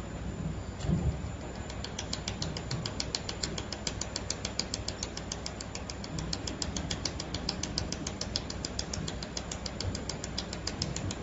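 Pulsed laser welding machine firing, a regular train of sharp ticks at about seven a second that starts about two seconds in, over steady machine noise. A low thump comes about a second in.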